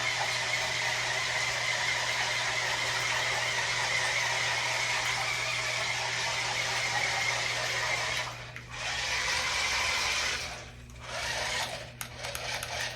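Small electric motors of a remote-control toy car whirring steadily, cutting out briefly about eight seconds in and twice more near the end.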